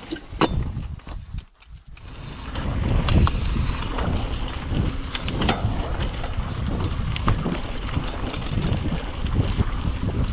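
Mountain bike rolling over a rocky dirt trail, with tyre rumble and scattered clicks and knocks from the bike rattling. Heavy wind buffets the GoPro's microphone. It briefly goes quieter about a second and a half in, then stays loud and steady.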